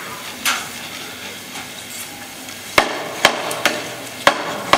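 Hammer striking the nails of a crucifix to free the figure of Christ for lowering from the cross: a softer knock about half a second in, then five sharp blows in quick succession over the last two seconds, each ringing briefly.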